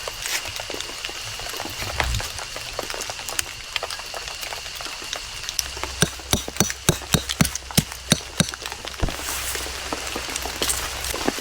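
Rain dripping onto a forest floor of fallen leaves: a steady patter with irregular, clear drips that come thicker and louder from about halfway through.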